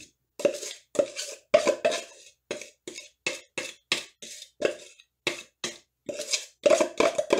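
A spoon knocking and scraping inside a plastic Kenwood mixer bowl as buttercream is scooped out, a quick run of sharp knocks, about three a second, each with a short ring from the bowl.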